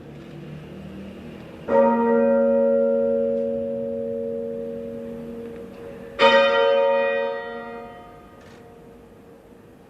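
A church bell tolling: two strokes about four and a half seconds apart, the first about two seconds in, each ringing on and slowly fading.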